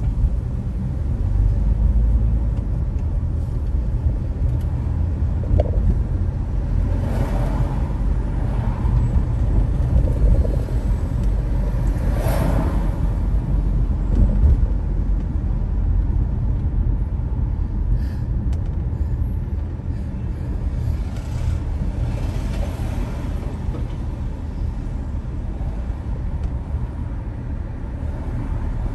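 A car driving through city traffic: a steady low rumble of engine and road noise, with the traffic noise swelling louder a few times.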